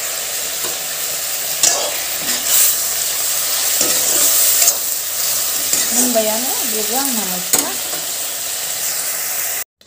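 Jackfruit curry frying and sizzling steadily in a metal kadai while it is stirred, the spatula scraping and knocking the pan a few times. The sound cuts off abruptly near the end.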